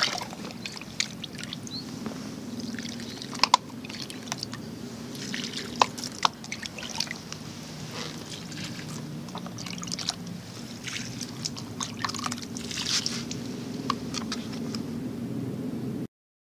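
Water scooped from a bucket with a plastic cup and poured onto the potting mix of chili plants in polybags: a run of pours, trickles and splashes with small sharp clicks of the cup.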